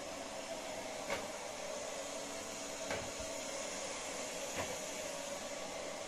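Robot vacuum cleaner running steadily, its fan and brushes making an even whirring hiss, with three light knocks less than two seconds apart.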